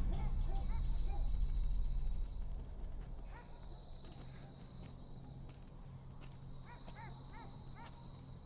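Night ambience: insects trill steadily and short chirping calls repeat. Under them a low drone fades away after about two and a half seconds.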